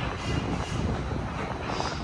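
Hanna Posi-Track car wash conveyor running, its plated track and rollers moving through the tunnel with a steady low rumble and irregular clatter.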